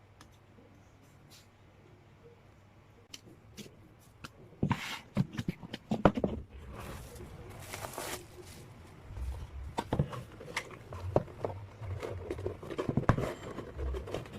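Hands opening and handling a sealed K-pop album: scattered clicks, taps and scrapes, with a longer rustling, tearing stretch about seven to eight seconds in, after a few seconds of quiet room tone.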